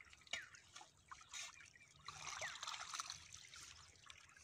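Faint trickle of irrigation water running along a field channel between potato rows, with a soft knock about a third of a second in.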